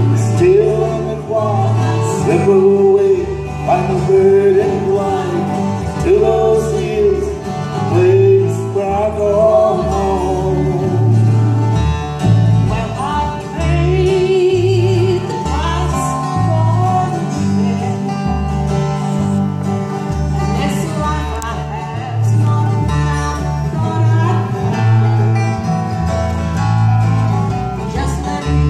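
Acoustic bluegrass band playing live: fiddle melody over strummed acoustic guitars and a walking upright bass line.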